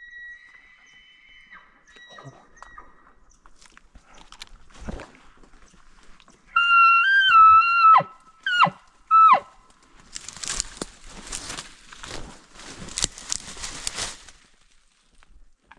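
Elk bugling: a loud, high whistle held for about a second and a half, then two short whistles that rise and drop off. After it comes several seconds of rustling noise.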